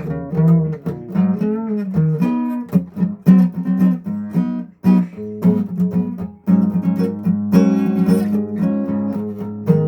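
Acoustic guitar playing a slow run of plucked and strummed notes, with brief pauses about five and six and a half seconds in.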